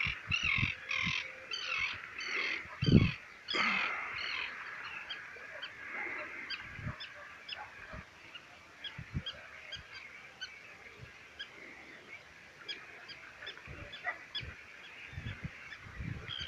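Birds calling at dawn by the sea: a quick series of loud honking calls for the first few seconds, then many short high chirps repeating throughout, with a few low thumps.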